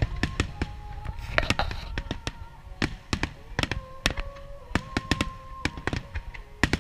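Fireworks shells bursting in rapid succession, many sharp bangs and cracks a few each second, over music with long held notes.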